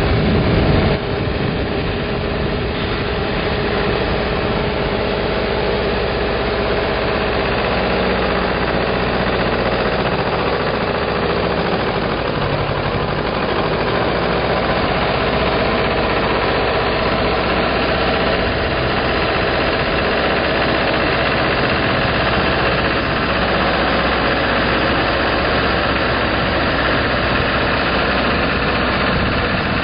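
Tractor diesel engine running steadily as it tows a vertical TMR feed mixer wagon that is discharging feed.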